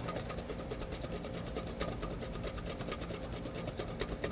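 Wire whisk scraping rapidly around a stainless steel bowl in rapid, even strokes, beating egg yolks for zabaglione to a froth over a double boiler.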